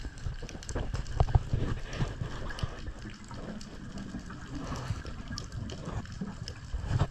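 Underwater sound as heard by a camera in its waterproof housing: a muffled low rumble of moving water with many scattered faint clicks and crackles.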